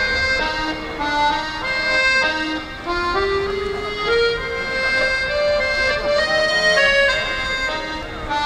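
Piano accordion played solo: a melody of held notes over sustained chords, the tune climbing step by step about three seconds in.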